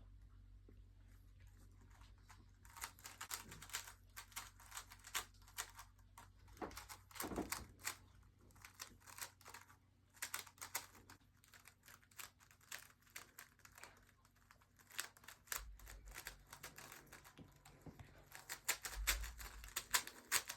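Rubik's cube being twisted quickly, a fast irregular run of small plastic clicks as the layers turn, starting a couple of seconds in.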